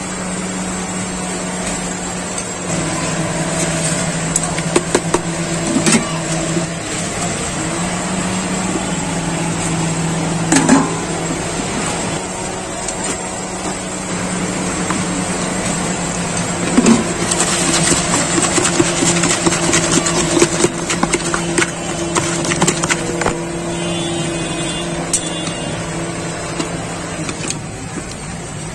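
A long steel spoon stirring and tossing a dry puffed-rice bhelpuri mix in a plastic bucket, with many quick scrapes and clicks against the sides and a few louder knocks. A steady engine hum runs underneath.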